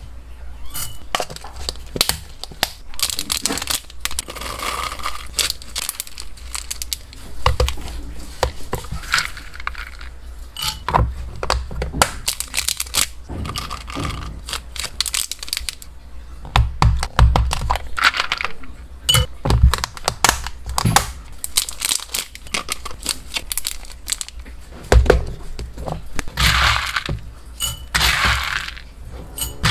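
Dry hamster food (pellets, seeds, nuts and dried fruit pieces) being scooped with a plastic spoon and poured into glass and plastic containers: a dense run of rattling, clicking and rustling, with sharper clicks as pieces strike the glass, and longer stretches of pouring rustle near the end.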